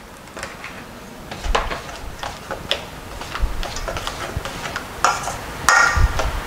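Metal spoon stirring tomato salsa in a stainless steel bowl, clinking and scraping against the sides in scattered clicks, which get louder and busier about five seconds in.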